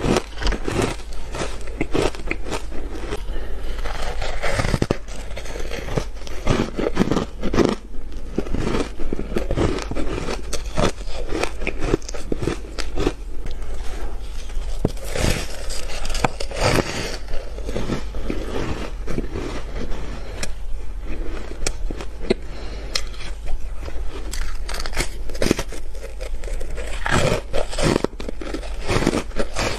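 Soft, powdery frozen ice being bitten and chewed, a dense run of irregular crunches close to a clip-on microphone.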